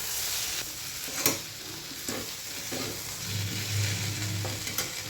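Vegetables and spices frying in mustard oil in a kadai, sizzling steadily while being stirred, with a few sharp knocks of the stirring spoon against the pan.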